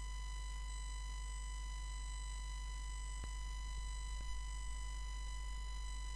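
Steady electrical hum and whine in the recording: a low mains hum with a thin, even high-pitched tone above it, unchanging throughout, and one faint click about three seconds in.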